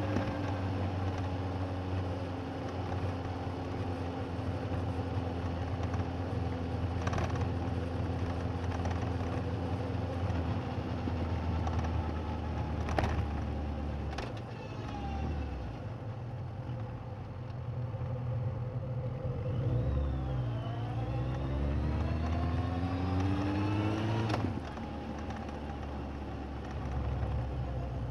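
Suzuki GSX1250FA inline-four engine heard from a recorder under the seat while riding, with a heavy low rumble. The revs ease off at the start and hold steady, then dip and climb again a little past two-thirds of the way in, with a few sharp knocks along the way.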